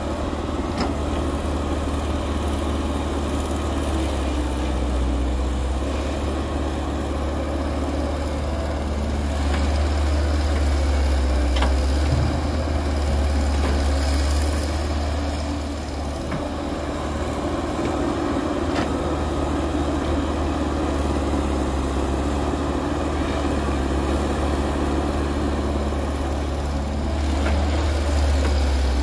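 Diesel engine of a CAT tracked hydraulic excavator running steadily, its loudness rising and falling as it digs soil and swings loaded buckets over to a dump truck.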